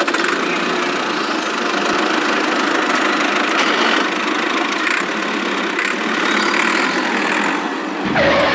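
Small motor of a DIY mini tractor running steadily with a dense mechanical rattle, then cutting off at the very end.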